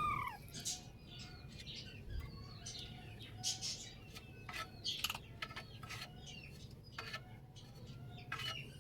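The last of a rooster's crow, falling in pitch and cutting off at the very start, then faint scattered chirps of small birds with a few sharp clicks.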